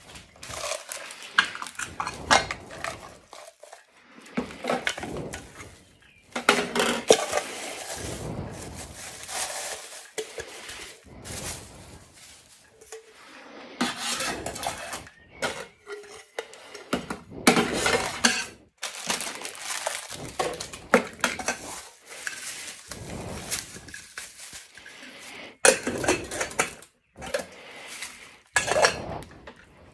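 A MalloMe cookware set being unpacked and handled: pots, lids, bowls and utensils clink and knock against each other and the cooktop, with handling noise between the knocks. The sound comes in short stretches broken by sudden gaps.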